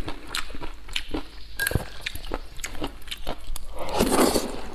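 Close-miked mouth sounds of eating wide flat noodles in meat sauce: wet chewing with many small clicks, then a loud slurp of a mouthful of noodles about four seconds in.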